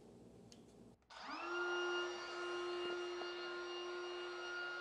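DeWalt cordless trim router switched on about a second in, its motor spinning up quickly and then running at a steady high pitch.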